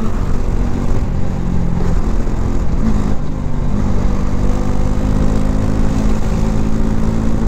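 Motorcycle engine running at a steady road speed, its note holding level and rising slightly in pitch in the second half, under wind and road noise.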